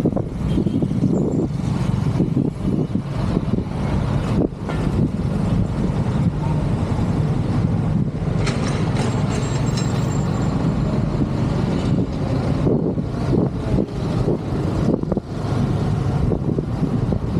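Steady low rumble of riding in city traffic: vehicle engines running with wind buffeting the microphone.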